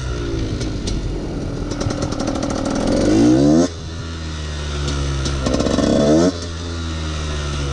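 Husqvarna WRE 125's two-stroke single-cylinder engine under hard throttle, its revs climbing steadily. About three and a half seconds in the revs fall abruptly. They climb again briefly and fall again about six seconds in.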